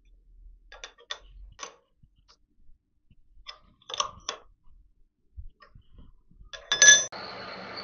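Light metallic clicks and clinks as a steel collet chuck sleeve and an angle plate are set up on a milling machine table, then a loud ringing metal clank about seven seconds in. Right after it the milling machine starts and runs steadily with a high whine.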